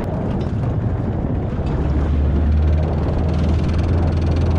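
Boat engine running over wind and water noise, its low steady hum coming up louder about two seconds in.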